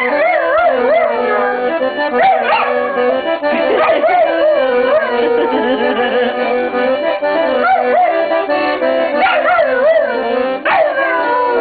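A dog howling and yipping along to an accordion playing held chords. The howls waver up and down in pitch, with sharper rising-then-falling cries about two, four and ten and a half seconds in.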